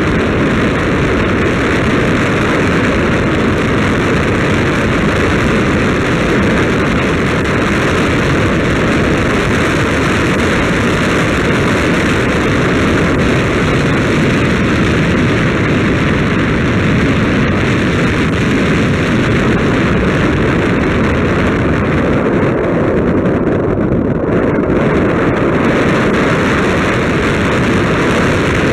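Loud, steady wind rush buffeting the microphone of a camera moving along a road, with no clear engine note.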